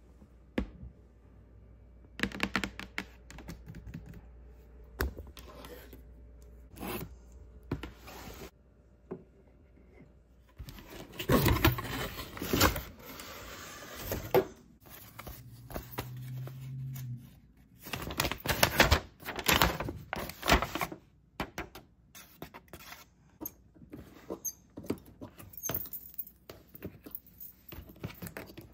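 Toy packaging being handled and opened: cardboard and plastic scraping and tearing, with scattered clicks and thunks, busiest in two stretches.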